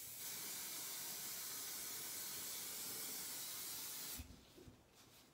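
Aerosol hairspray can spraying in one continuous hiss that cuts off about four seconds in.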